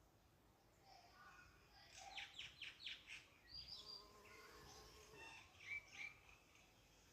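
A small songbird singing faintly: a quick run of five or six descending notes about two seconds in, followed by scattered chirps.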